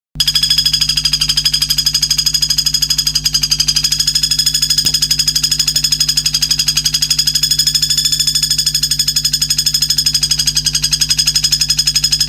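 A songbird's rapid, even, high-pitched buzzing trill, held on without a break, with a steady low hum under it.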